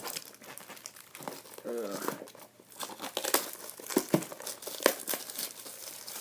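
A small cardboard blind box and its packaging being handled and torn open: irregular crinkling, crackling and tearing, with a few sharper snaps in the second half.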